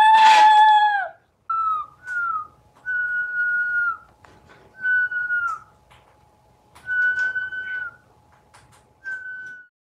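Chattering lory calling in a series of about seven clear, level whistles, each a second or less and often dropping at the end. The first is the loudest and lowest. Light clicks fall between the calls.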